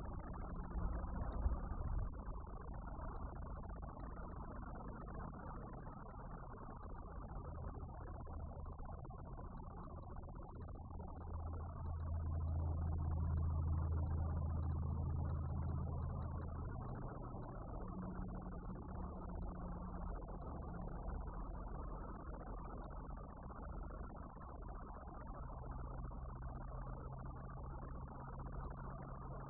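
Iwasaki grass cicada (Mogannia minuta) singing: one continuous, steady, very high-pitched buzz with no breaks.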